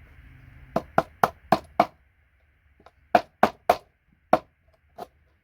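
Sharp knocks of a metal tool striking a circuit board as a connector is cut off it: a quick run of five, about four a second, then four more and a single one near the end.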